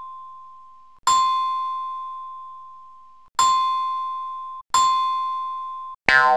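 A bell-like ding chime, struck three times at uneven gaps, each strike ringing down slowly. The last two are cut short. Right at the end a brighter, buzzier tone begins.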